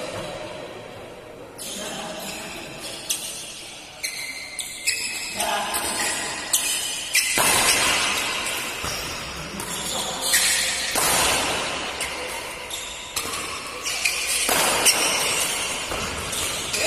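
Badminton rackets striking a shuttlecock in a rally: a string of sharp hits, irregularly spaced a second or so apart, over a background of voices in a large hall.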